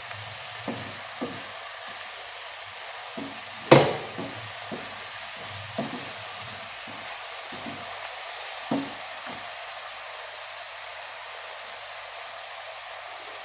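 Mushrooms sizzling steadily in hot oil in a nonstick frying pan as a wooden spatula stirs them, its strokes scraping and tapping the pan every second or so, with one sharper knock about four seconds in.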